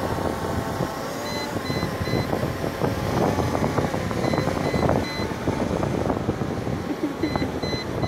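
Wind buffeting the microphone in a dense, steady rumble. Through it, a short electronic beep sounds three times in quick succession, and the group repeats about every three seconds.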